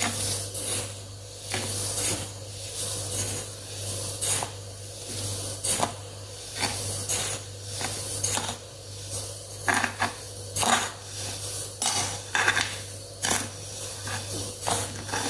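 Granulated sugar poured from a bowl into a glazed ceramic jar, pushed along by a steel spoon: repeated irregular scrapes and clinks of the spoon against the bowl over the hiss of the running sugar.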